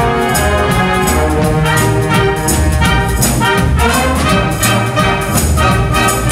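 Concert band playing live: massed brass and woodwinds over a steady, driving drum beat.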